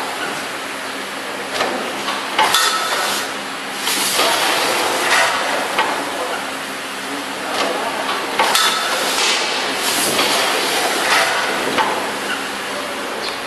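Vertical form-fill-seal packaging machine running, knocking and clinking every second or so through its bagging cycle over a steady noisy mechanical din.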